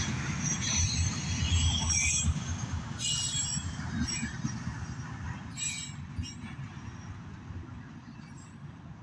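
Freight train of autorack cars rolling past with a steady rumble of wheels on rail and short high squeals from the wheels in the first few seconds. The rumble fades as the end of the train moves away.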